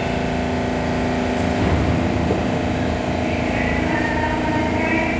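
R68 subway train pulling slowly along the platform as it comes to a stop: a steady mechanical hum from the car, with a low rumble about two seconds in and higher-pitched tones coming in near the end.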